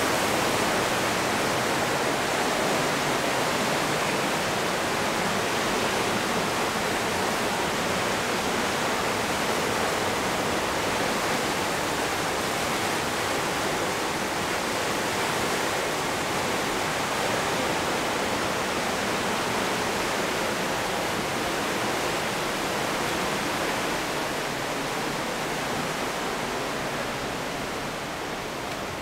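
Brandywine Falls, a 70-metre waterfall, rushing steadily with an even roar of falling water, easing slightly near the end.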